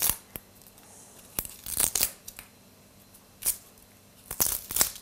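Dry onion skin crackling and tearing as it is peeled off with a knife, in several short, irregular scratchy bursts. This onion's skin is hard to peel.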